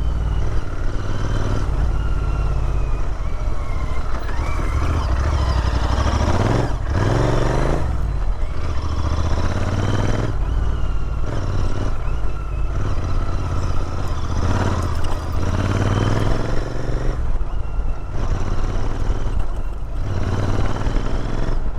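Royal Enfield Interceptor 650's parallel-twin engine running under way on a rough trail, its note rising and falling as the throttle opens and closes.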